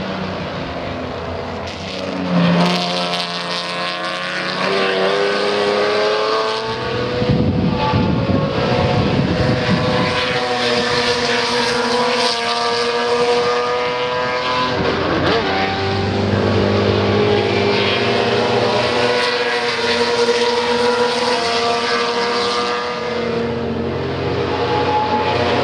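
Broadspeed Jaguar XJ12 Coupe race car's 5.3-litre V12 running loud at high revs. Its pitch climbs, holds and drops back several times as it accelerates and eases off.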